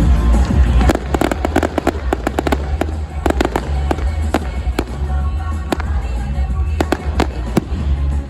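Fireworks going off in quick succession: many sharp bangs and crackles from about a second in, over loud music with a heavy bass line playing with the show.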